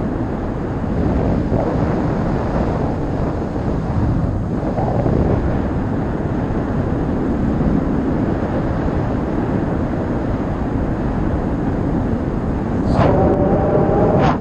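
Airflow buffeting the microphone of a camera on a flying paraglider, a steady low rumble throughout. A brief steady tone sounds near the end.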